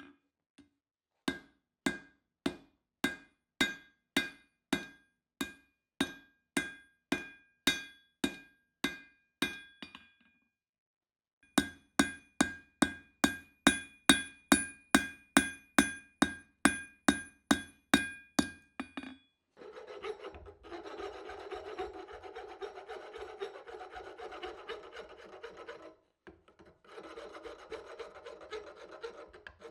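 Hammer blows ringing on steel at an anvil, about two a second, then after a short pause a faster run of blows. These give way to a continuous rasping scrape of metal being worked, broken once by a brief pause.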